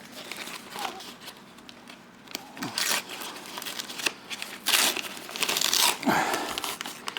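Paper microwave pork rind bag being unfolded and pulled open, crinkling in several bursts, the loudest about three to six seconds in.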